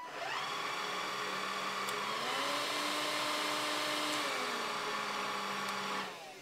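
Bosch BBH214 cordless stick vacuum's motor switched on with a click and running with a steady whine. About two seconds in its pitch steps up to the higher power setting, and about two seconds later it steps back down. Near the end it is switched off and winds down with a falling whine.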